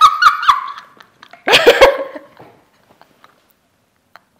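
Two women laughing hard: high-pitched squealing laughter in the first half second, another burst of laughter about a second and a half in, then only faint breaths and clicks as they try to stifle it.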